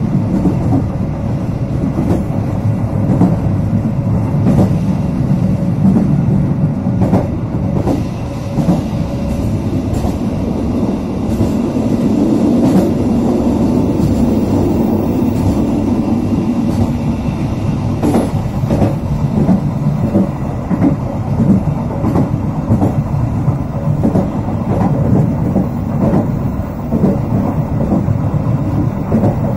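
Passenger train coach running along the track at speed: a steady rumble with irregular clicks and knocks of the wheels over the rails.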